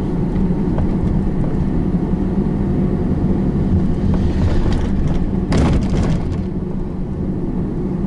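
Cargo van driving through town streets, heard from inside the cab: steady engine and road rumble. A short louder burst of noise comes about five and a half seconds in.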